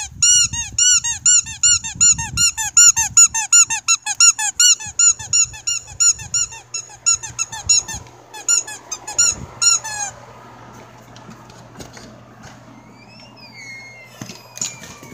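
Rubber squeaky dog toy squeaked over and over, about three short, high squeaks a second, thinning out and stopping about ten seconds in.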